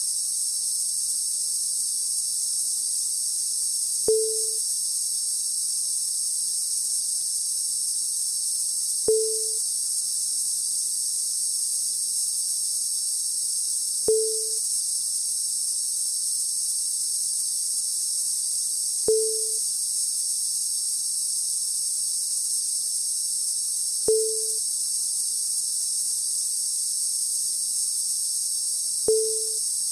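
Cicada-like electronic noise: a steady, dense high-pitched electrical buzz over a faint low hum. A sharp click with a brief low blip comes every five seconds, six times.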